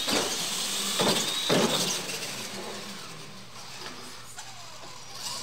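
Electric RC monster trucks launching off the start line, their motors whining high as they accelerate, with heavy thumps as the trucks bounce over the launch ramps at the start, about a second in and about a second and a half in. The whine then fades as they run away.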